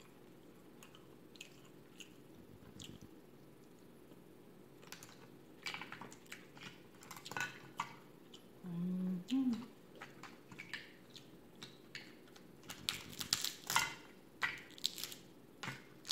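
Cooked crab-leg shells crackling and snapping as they are broken and picked apart by hand, close to the microphone. The sound comes in scattered bursts that start about five seconds in and grow denser toward the end, with a short low hum about nine seconds in.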